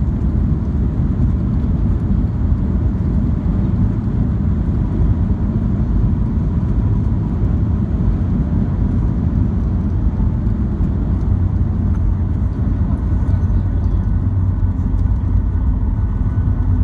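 Steady low rumble of a Boeing 737 heard from inside the passenger cabin: engine and airflow noise around landing. A faint steady whine joins near the end.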